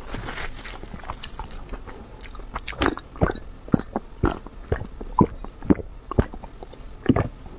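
A person gulping a drink from a glass mug, swallowing about twice a second, starting about three seconds in.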